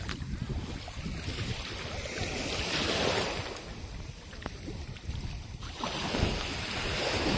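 Small waves washing in shallow seawater, swelling twice, about three seconds in and again near the end, with wind buffeting the microphone.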